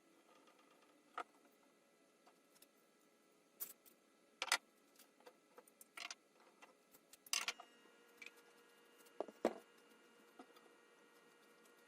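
Clamps being loosened and taken off a freshly glued wooden rocking chair: irregular clicks and knocks, a second or more apart.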